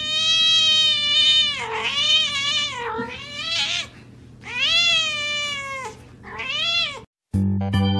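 A domestic cat giving a series of about five long, wavering meows, each rising and then falling in pitch, with short breaks between them. Music cuts in near the end.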